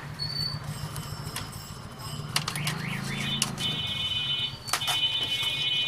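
Small clicks of a screwdriver and screw as the audio IC is screwed down to its heatsink, over a low steady hum. A high buzzing starts about three seconds in and carries on.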